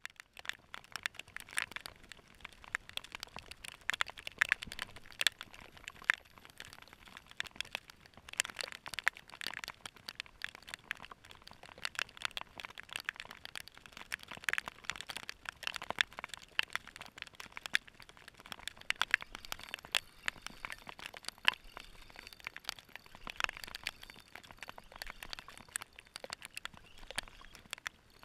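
Rain drops striking the sealed plastic housing of a GoPro camera in a downpour: a dense, irregular crackle of sharp ticks.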